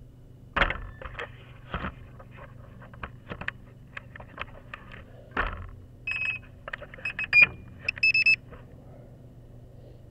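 Scattered clicks and knocks on a Walkera QR X350 quadcopter sitting on the grass, then a string of short, high electronic beeps from about six seconds in, over a faint steady hum.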